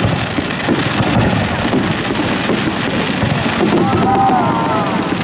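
Aerial fireworks bursting: a continuous rumble of overlapping booms with many sharp crackles and pops.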